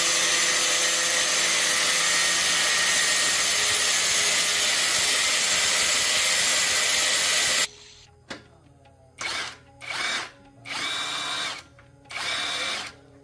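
A power tool running steadily at full speed for about eight seconds, then cutting off and being run in four or five short bursts.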